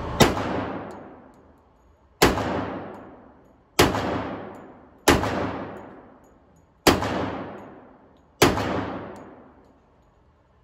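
Six pistol shots from a 1911, fired one at a time at a steady, unhurried pace, each a sharp crack followed by a long echo off the walls of an indoor range.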